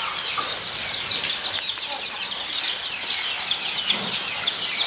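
A group of guinea pigs squeaking together: a dense, continuous chatter of short, high squeaks that slide downward in pitch, many overlapping at once.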